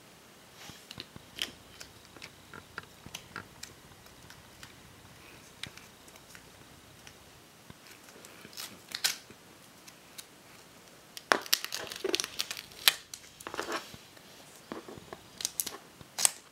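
Red duct tape crackling and tearing as it is handled, pulled from the roll and cut across with an X-Acto craft knife. It comes as scattered crackles and clicks, busiest from about eleven to thirteen seconds in and again shortly before the end.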